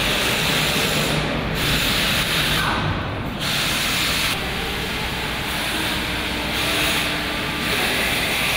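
Factory hall noise: a steady hiss over a low machinery rumble, shifting abruptly in tone every second or so.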